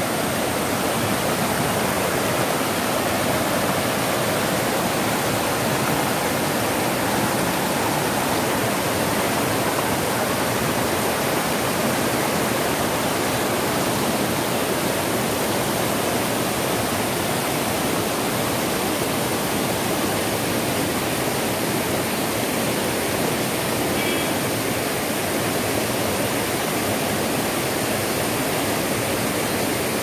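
Small waterfall: water pouring over rocks in a steady, unbroken rush.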